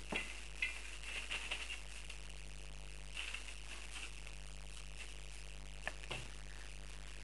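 Dogue de Bordeaux puppies' paws rustling and crinkling the newspaper they walk on: a few short, scattered crackles, over a steady low hum.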